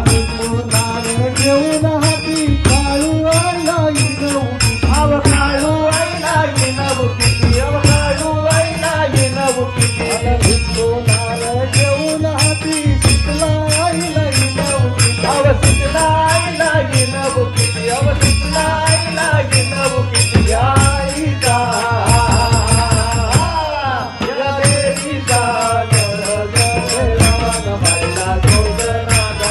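Devotional bhajan: male singing to harmonium, a rope-laced barrel drum played by hand, and a steady high jingling beat. The jingling drops out for a moment about three quarters of the way through.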